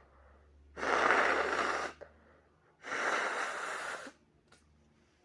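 A person with a head cold blowing their nose twice, each blow a long noisy rush of air lasting a little over a second.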